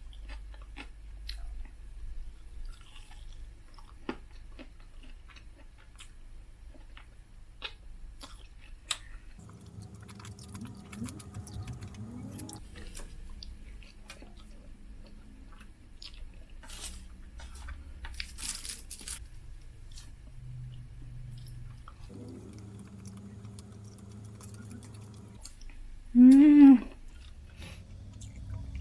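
Close-miked chewing and crunching of food eaten by hand, rice and a crunchy onion salad, with many small wet clicks and crackles. Near the end comes a brief loud tone that rises and falls in pitch.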